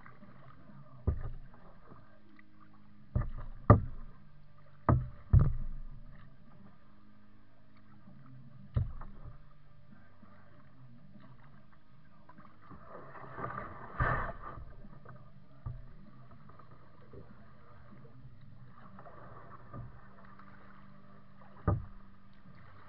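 Plastic kayak being paddled: a series of sharp knocks at irregular intervals, the loudest in the first few seconds, carried through the hull to the bow-mounted camera, with a longer swishing splash about two-thirds of the way through.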